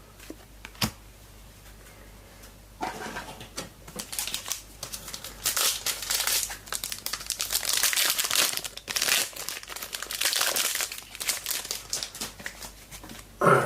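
Foil wrapper of a trading-card pack crinkling as it is handled and opened, from about three seconds in until near the end, after a single sharp click about a second in.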